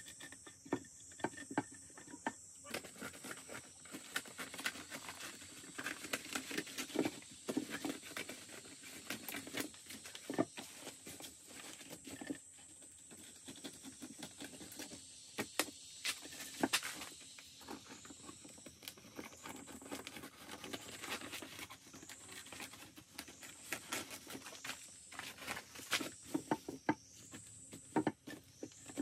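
Irregular light clicking and tapping of handwork, over a steady high-pitched insect drone with short rising chirps repeating at intervals.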